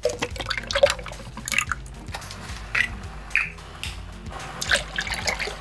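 Kitchen cooking sounds: a string of short clinks and knocks from utensils and dishes, with some water or liquid, over soft background music.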